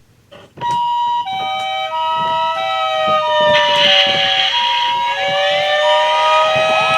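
Several emergency-vehicle sirens sounding at once: a hi-lo two-tone siren swapping pitch about every half second over a slowly gliding wail, with another rising-and-falling siren joining about three and a half seconds in.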